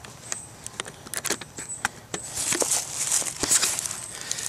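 Rustling and crackling of dry leaf litter and brush underfoot, with scattered sharp clicks like small twigs snapping.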